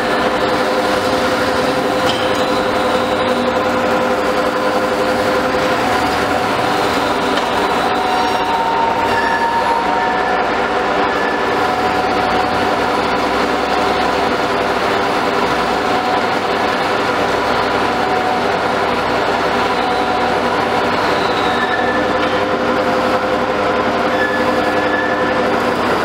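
The 27-horsepower gasoline engine of a hydraulic drilling rig running steadily under load, driving the hydraulics while the mast is raised. Several higher whining tones come and go over the engine's drone.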